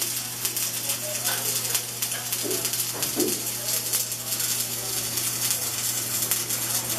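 Stick-welding arc crackling steadily as a seam is welded on a sheet-metal timbale cowbell, with a steady low hum underneath.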